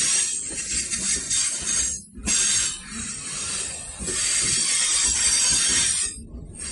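ICE high-speed train's wheels squealing on the rails as it pulls out of the station at low speed, a shrill, high-pitched screech over a low rumble. The squeal breaks off briefly about two seconds in and again near the end, then comes back.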